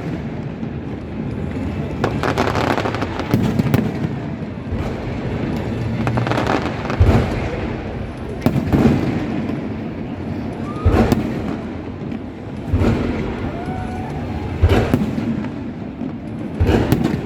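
Fireworks going off: a run of sharp booms about every one to two seconds, about nine in all, with crackling between them.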